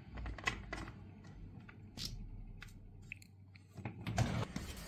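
Scattered clicks, taps and scrapes of hands working the filler cap on the body of a UDT UCS-45S chainsaw.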